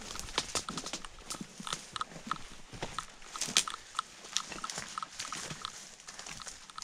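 Footsteps through tall grass and dry brush, with twigs and fallen branches crackling and snapping underfoot in irregular sharp clicks.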